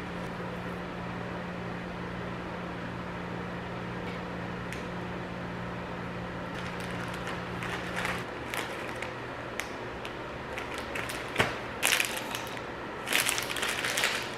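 Thin plastic crinkling and rustling as a sandwich is slid into a zip-top sandwich bag and packaging is handled, in irregular bursts that grow loudest near the end. Beneath it a steady low appliance hum runs and cuts off about eight seconds in.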